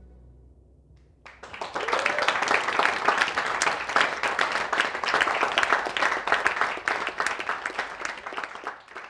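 The song's last notes fade away, and about a second in a small audience breaks into applause, many hands clapping, which starts to thin out near the end.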